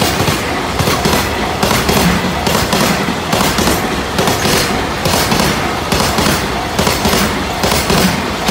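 Container wagons of a freight train passing close at speed: a loud, continuous rumble of wheels on rail broken by sharp clacks several times a second as the wheelsets cross rail joints.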